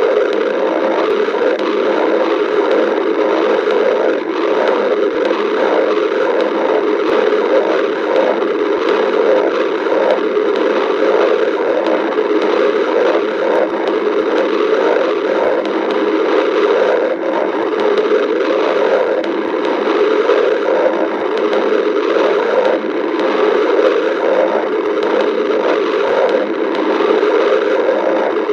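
Badger's stomach growling: a loud, steady churning noise made of many quick, irregular pulses.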